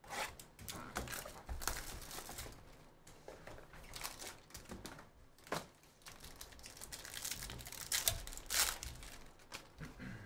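Foil wrapper of a trading-card pack being torn open and crinkled in the hands, in irregular crackling bursts, with the loudest crinkles near the end.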